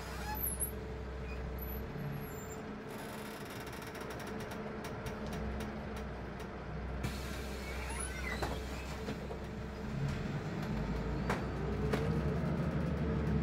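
City bus running on the road, heard from inside the cabin: a steady low engine drone with scattered rattles and clicks. About eleven seconds in the engine gets louder and a whine rises as the bus picks up speed.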